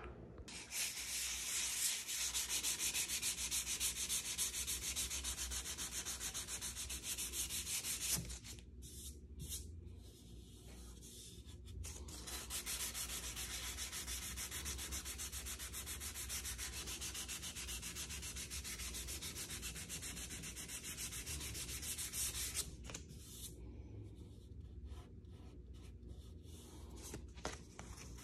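Hand sanding of spot putty on the primed steel frame of a 1979 VW bus door with a sanding sponge, in quick back-and-forth rubbing strokes. The sanding pauses twice for a few seconds, about a third of the way in and again near the end.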